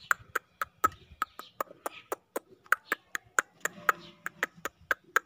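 A rapid, fairly even run of sharp clicks, about four a second, some with a short ringing tone.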